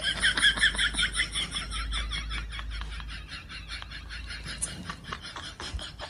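An animal calling in a rapid, even series of short high-pitched notes, about five a second, fading as it goes.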